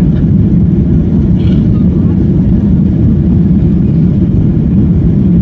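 Steady low rumble of a jet airliner heard from inside the cabin, engines running and wheels rolling along the runway.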